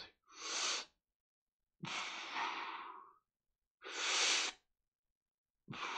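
A man taking deep, audible breaths through the mouth for a diaphragmatic belly-breathing exercise: three breaths, a short one, then a longer one of over a second, then another short one.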